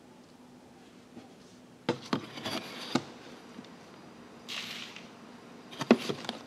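A small metal bowl scooping dry rub out of a plastic container: a few sharp clacks and knocks of the bowl against the tub with rustling scrapes, and a brief hiss of the powdery rub pouring out about halfway through.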